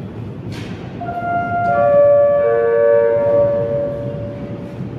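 Metro train approaching the platform sounding a long chord of several steady high tones, the pitches coming in one after another about a second in and holding for about three and a half seconds, over a low steady rumble in the station.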